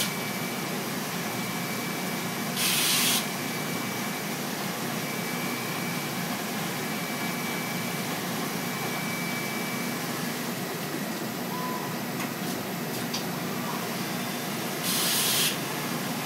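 Willemin-Macodel W408B 5-axis mill cutting stainless steel under flood coolant: a steady spray and splash of coolant, with a faint high whine that comes and goes. Two short, louder hisses break in, about three seconds in and near the end.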